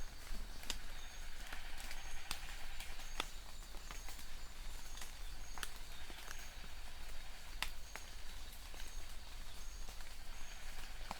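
Rain falling, with many large drops striking and dripping as sharp, irregular taps over a steady hiss. A faint high chirp repeats about once a second.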